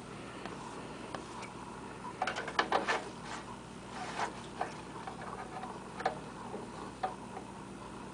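Small sharp clicks and taps from handling the oil dipstick and filler of the lawn tractor's 8 hp Briggs & Stratton engine while its oil level is checked. There is a quick cluster of clicks about two seconds in, then single clicks every second or two.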